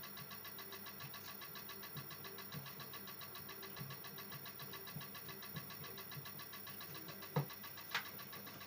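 Car engine idling with a regular, repeating knock whose cause is unknown. Two sharp clicks near the end.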